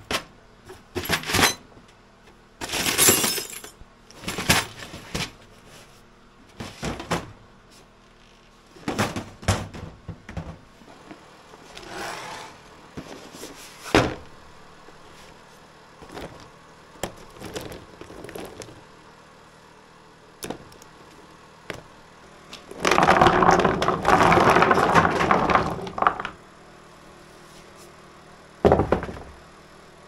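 Short knocks and rattles of plastic bins and scrap being handled, then a loud clatter of about three seconds as a tub of old plastic power plugs with brass pins is tipped out onto a wooden workbench, and one more knock near the end.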